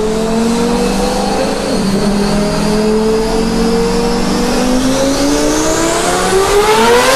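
Twin-turbo Lamborghini Gallardo V10 engine running at a steady pitch, then revving up with a steady rise in pitch over the last few seconds.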